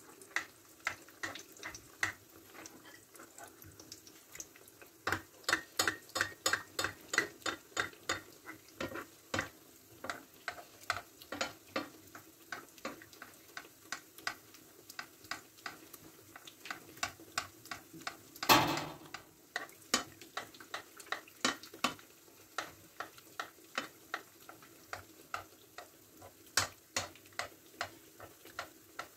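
Hot oil crackling and popping around squares of almond-stuffed rghaif pastry frying in a pan, with oil spooned over them so they puff up. One louder burst of crackling comes about two-thirds of the way through.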